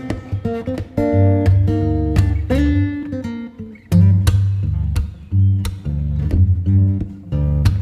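Background music: guitar, with plucked notes and strums over a steady bass line.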